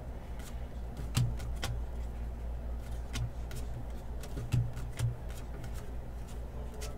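Trading cards being handled and set down: scattered light clicks and taps over a steady low hum.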